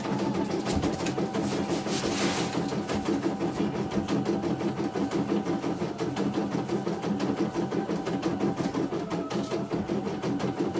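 CNY E900 computerized embroidery machine stitching a design, its needle running in a steady, rapid rhythm while the hoop carriage moves the fabric.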